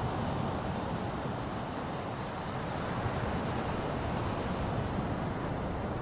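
Ocean surf: a steady rush of waves washing on a shore.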